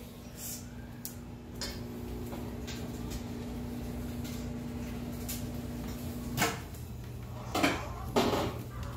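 A steady appliance hum that cuts off with a knock about six seconds in, followed by two clattering sounds near the end, like a cupboard or appliance door being handled.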